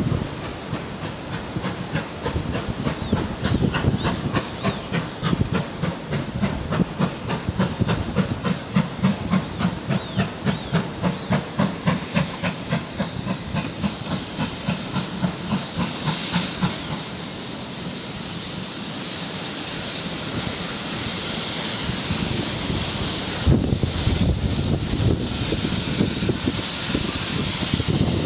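GWR Hall class 4-6-0 steam locomotive No 4936 'Kinlet Hall' working in, its exhaust chuffing in a regular beat, which stops about two-thirds of the way through. After that comes a steady hiss of steam from the locomotive, growing louder.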